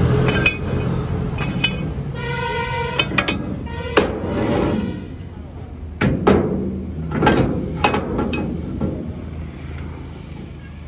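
Sharp metal clanks and knocks, about five of them between four and eight and a half seconds in, as a steel gear and shaft assembly is handled and fitted into a trolley's square-tube mount. Road traffic runs steadily underneath, with a brief steady pitched tone about two seconds in.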